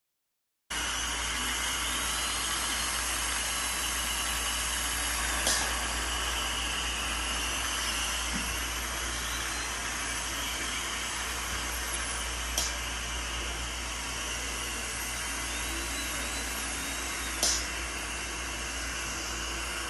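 Dental equipment at the chair running with a steady hiss and a faint wavering whine. It starts under a second in after a moment of silence, and three faint clicks are heard.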